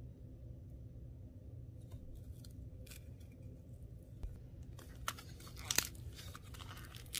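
Crusted clay ball cracking and crunching as fingers squeeze and tear it open. A few faint crackles come first, then denser, louder crackling near the end.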